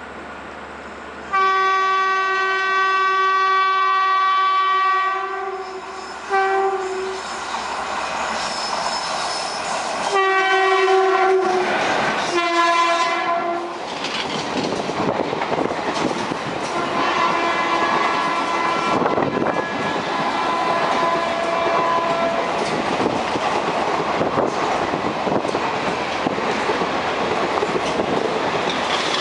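Indian Railways WAP-1 electric locomotive of an overtaking express sounding its horn: a long blast about a second in, a short toot, then another blast whose pitch drops as the locomotive passes. A steady rush and clickety-clack of its coaches going by follows.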